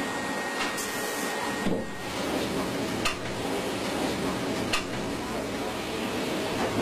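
Banknote sheet-handling machinery running steadily, with a few sharp clicks and knocks as stacks of printed sheets are moved and set down.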